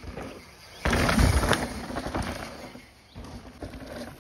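Mountain bike passing close on a dry dirt trail: a sudden rush of tyre-on-dirt noise about a second in, fading away over the next two seconds.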